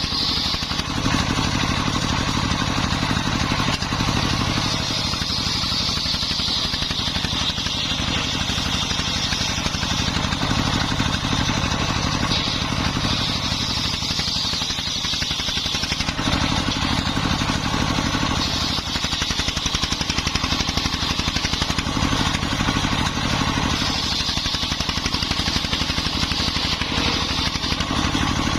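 Dongfeng 24 hp diesel engine running steadily, driving a homemade circular saw rig, with the saw blade's high whine swelling and fading as it cuts through timber.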